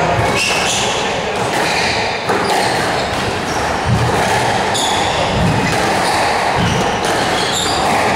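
Squash rally: the ball cracks off the rackets and the court walls about once a second, with players' shoes squeaking on the court floor over the reverberant hall.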